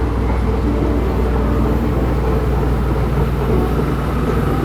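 Schindler 9300AE escalator running: a steady low hum from its drive and moving steps.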